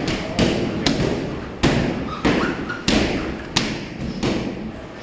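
Kicks and punches landing on Thai pads and focus mitts: a sharp smack about every two-thirds of a second, about seven strikes in all.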